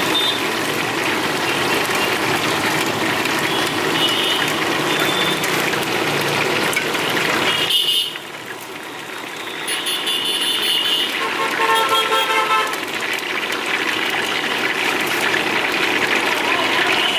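Chicken pieces deep-frying in a kadai of hot oil: a steady, dense sizzle that drops away briefly about eight seconds in. Vehicle horns toot from the street several times over it.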